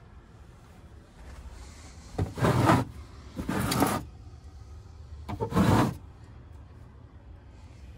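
Sliding wooden doors of an overhead camper cabinet pushed along their tracks: three slides of about half a second each, the middle one quieter.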